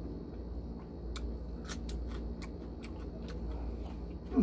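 Eating sounds: scattered soft wet clicks of chewing and of fingers mixing rice with canned tuna, over a steady low hum. A short voiced sound comes at the very end.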